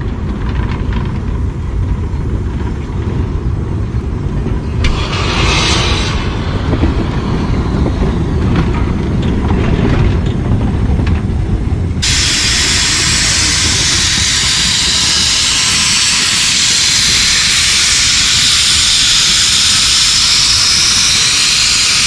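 Small George England narrow-gauge steam locomotive blowing steam from its cylinder drain cocks: a loud, steady hiss that starts abruptly about halfway through. Before it there is a low rumble with a brief hiss a few seconds in.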